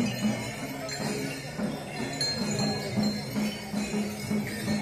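Small bells jingling and ringing over a crowd's murmur.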